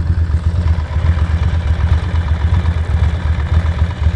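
Ducati Monster's L-twin engine running steadily at low revs with a rapid, lumpy pulse.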